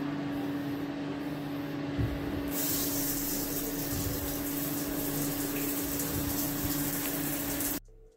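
Shower water running and spraying onto the tiles. After a knock about two seconds in, it turns louder and hissier, then holds steady and cuts off suddenly near the end.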